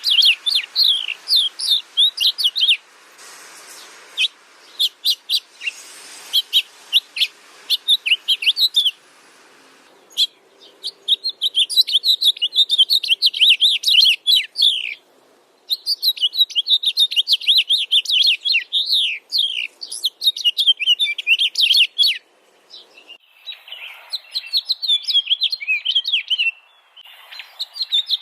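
Small songbirds chirping and twittering in rapid runs of short high notes, in bouts broken by brief pauses.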